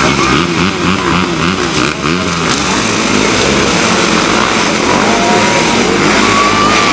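Motocross motorcycle engines revving, the pitch rising and falling over the first couple of seconds, then settling into a steadier run.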